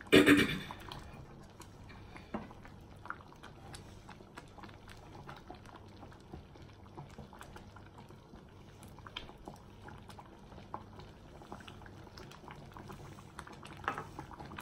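Thick chicken and chana daal simmering in a saucepan, bubbling with many small pops and clicks. A silicone spatula stirs through it, with a short loud scrape and splash right at the start.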